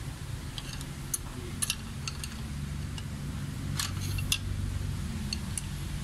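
Light metal clicks and clinks of hand tools and small engine parts being handled, a handful scattered through, over a steady low hum.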